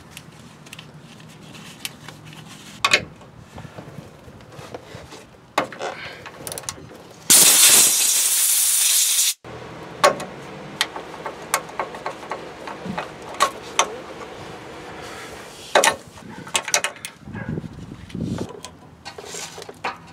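Scattered clicks, taps and scrapes of hand tools on the plastic clips and connector of an exhaust NOx sensor's wiring harness, and a wrench on the sensor. About seven seconds in, a loud steady hiss lasts about two seconds and cuts off suddenly.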